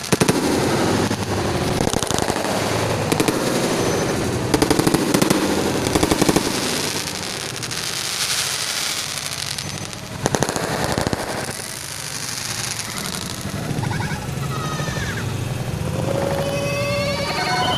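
Fireworks going off in rapid crackling barrages of many quick pops, with louder bursts about three, five, six and ten seconds in.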